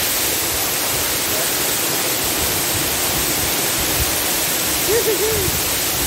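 Waterfall rushing steadily, an even roar of falling water. About five seconds in, three short rising-and-falling tones sound briefly over it.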